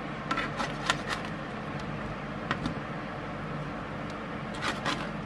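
A slotted spatula scraping and clicking against a metal baking tray as roasted chicken pieces and peppers are turned over. The clicks come in short clusters near the start, once midway and again near the end, over a steady hum.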